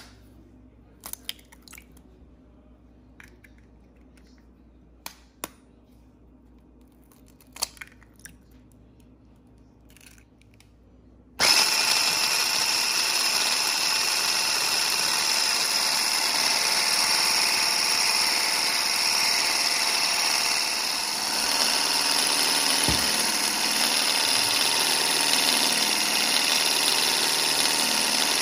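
A few sharp clicks and taps as two eggs are added to a glass bowl. About eleven seconds in, a handheld electric stick blender with a wire whisk attachment switches on suddenly and runs steadily, whisking the eggs.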